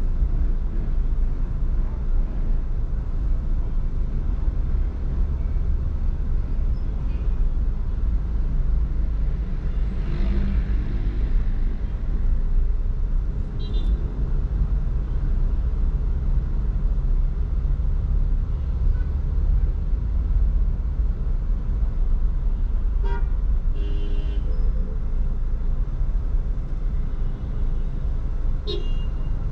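Steady low rumble of road traffic, broken by short car-horn toots: one about halfway through, a few more in the last third, and one near the end.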